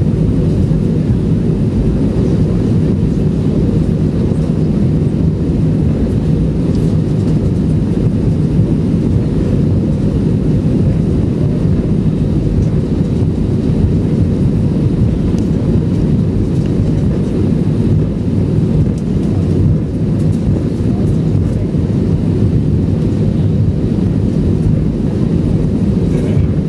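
Steady deep rumble with a low hum from a vehicle's engine and running gear, heard from inside while it moves slowly across the airport apron.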